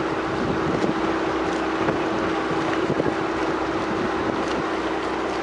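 Boat engine running steadily with a constant low hum, with wind buffeting the microphone.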